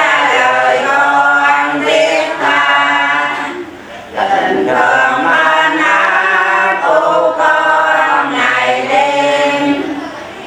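A group of voices singing a hymn without accompaniment, in long held phrases with a short pause about four seconds in.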